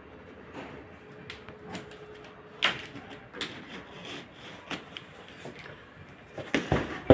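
Packaging being handled while a washing machine is unpacked: irregular rubbing and scraping with scattered clicks and knocks, one sharp click about two and a half seconds in and louder knocks near the end.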